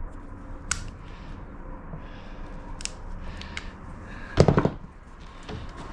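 A manual copper wire stripper being worked with stiff old wire: scattered sharp metallic clicks, then a short clattering rattle about four and a half seconds in.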